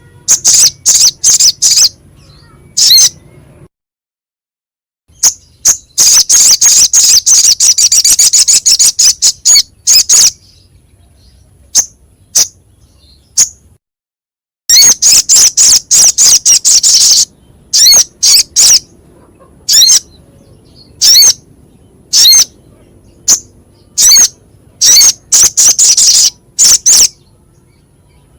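A sogok ontong (sogon) songbird calling in rapid trains of harsh, sharp, high notes, each run lasting one to three seconds, broken by single notes and short pauses.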